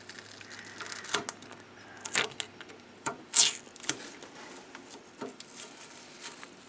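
Adhesive tape being peeled off a ribbon cable by hand, heard as short swishes about two and three and a half seconds in, with light clicks and rustles from handling the plastic parts.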